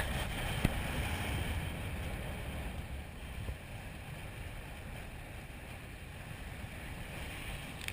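Wind rumbling on the microphone over the steady wash of sea surf, easing off a little toward the end.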